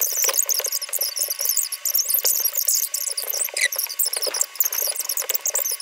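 Fast-forwarded voices and card play: children's chatter sped up into a continuous stream of high-pitched, squeaky chirps with no low end.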